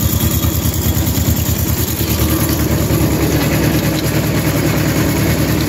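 Small farm tractor's engine running steadily with an even, rapid beat while it pulls a wagon of grass.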